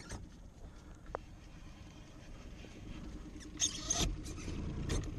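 Baitcasting reel working against a hooked fish: a thin steady whir from about three seconds in, with a few short, sharp bursts near the end.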